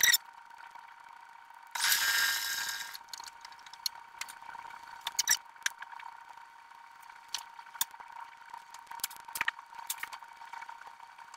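Sped-up sewing-room handling sounds: scattered quick clicks and rustles as fabric is worked, with one loud hissing rush about two seconds in, over a steady high hum.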